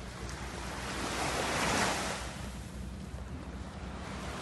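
Small waves breaking on a sandy shore, the wash swelling about two seconds in and easing off, with wind rumbling on the phone's microphone.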